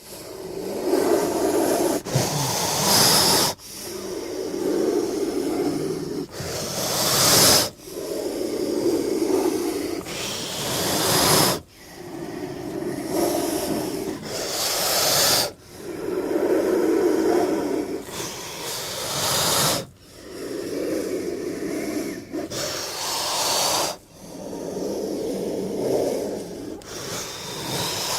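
King cobra hissing, over and over: each breath a lower, rasping growl-like hiss followed by a sharp, high hiss, repeating about every four seconds, some seven times. It starts abruptly out of silence.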